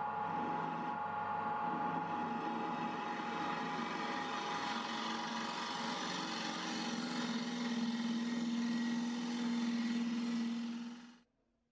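Dema DM 450 wood lathe running while a gouge cuts the inside of a dried poplar bowl: a steady motor hum under the hiss of the tool peeling off shavings. It stops suddenly near the end.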